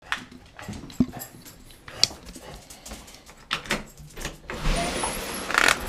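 Footsteps and scattered clicks on a wooden floor, then a front door's knob turned and the door pulled open, with a longer rushing scrape in the last second or so as it swings.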